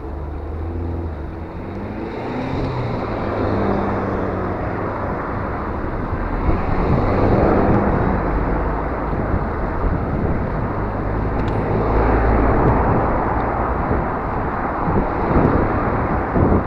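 Steady rush of wind and road noise from riding a bicycle, with engine noise from passing motor traffic swelling and fading.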